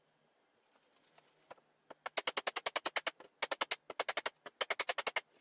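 Rapid runs of sharp clicks, about ten a second, in three bursts of about a second each, starting about two seconds in after a few faint ticks.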